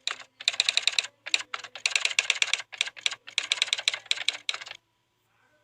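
Typing sound effect: runs of rapid key clicks with short pauses between them, stopping a little before the end.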